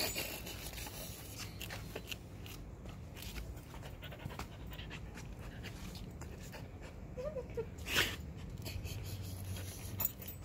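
Husky panting and mouthing grass while lying on a lawn, with scattered small clicks and rustles. About seven seconds in there is a brief faint whine, followed just after by one short sharp huff, the loudest sound.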